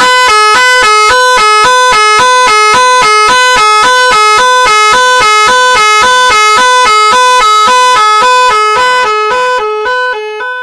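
Magic 18 electronic car horn, two horn-shaped speakers driven by a tone module, sounding a very loud two-tone hi-lo pattern like a police siren. It switches between the two notes about four times a second and fades away near the end.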